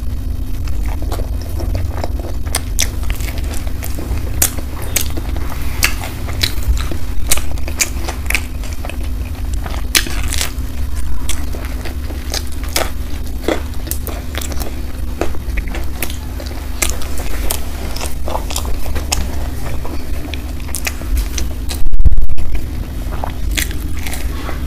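Close-up eating sounds of a woman biting into and chewing a slice of corn pizza: many sharp, irregular crunchy clicks from the crust over a steady low hum. A brief loud bump near the end.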